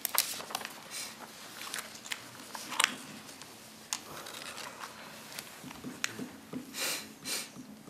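Room tone of a council chamber with scattered rustling and small clicks of things being handled near the microphones, and two louder rustles near the end.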